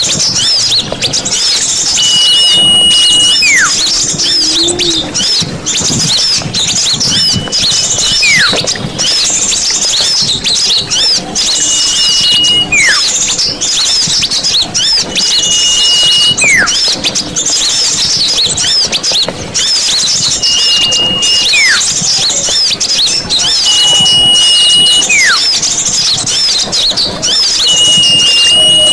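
Bird-lure recording of many small birds twittering and chattering densely. About every four seconds a louder whistle repeats: a held high note, then a quick whistle sliding downward.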